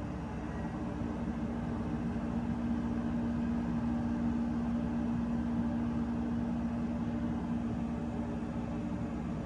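Addison 30-ton rooftop air-conditioning unit running in cooling with its compressor on: a steady mechanical hum with a droning tone that swells slightly through the middle.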